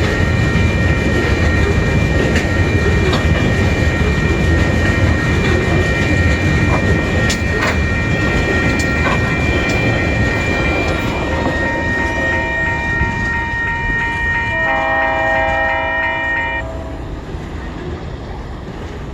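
Freight train of loaded coal wagons rolling past, with a steady low rumble and wheel clicks over the rail joints, under steady high ringing tones. Several lower pitched tones join over the last stretch and all stop together near the end, after which the rumble fades.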